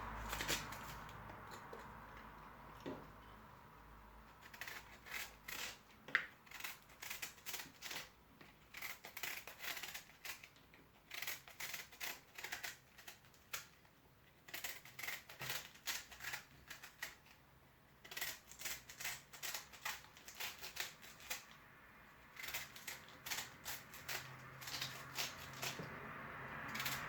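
Kitchen knife cutting up cabbage, in runs of quick crisp strokes a few to the second with short pauses between the runs.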